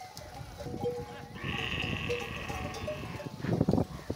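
A herd of dromedary camels calling, with one long call of nearly two seconds starting about a second and a half in, over a low, busy rumble of the herd; a loud low burst of sound comes just before the end.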